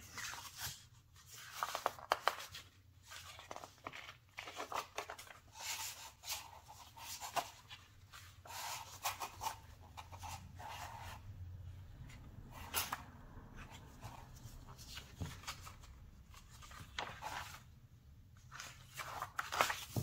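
Paper instruction booklet being handled and its pages turned, giving irregular rustles of paper with a few short quieter gaps.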